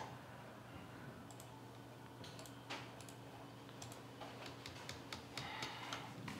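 Faint computer keyboard typing and clicking, scattered irregular keystrokes over a low steady room hum.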